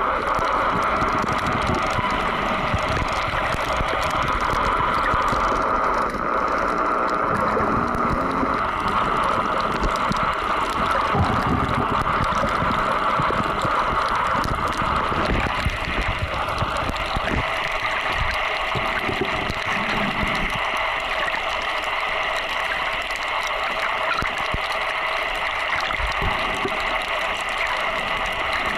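Underwater ambience on a coral reef picked up by a submerged camera: a steady hiss and hum, strongest in a middle band, scattered with many small crackling clicks.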